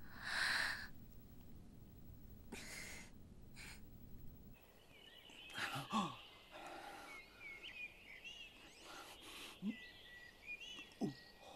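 A man groaning and grunting in pain as he moves a bruised, injured body, in short low sounds that fall in pitch. Birds chirp in the background from about halfway through, and a short breathy burst comes about half a second in.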